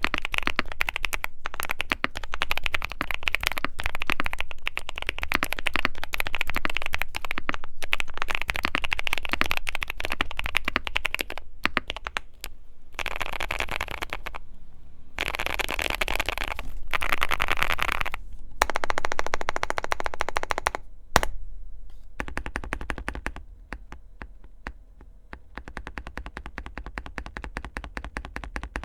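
Fast typing on a QK65 mechanical keyboard with lubed Gazzew Boba U4T tactile switches on a POM plate and PBT keycaps: a dense run of key clacks. The typing gets quieter for the last several seconds.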